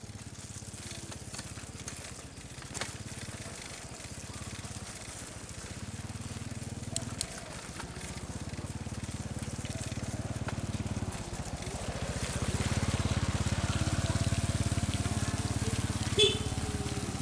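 A small engine running with a low, even throb that grows louder over the last few seconds, over a light wet hiss. There are a few faint clicks, and one sharp knock near the end.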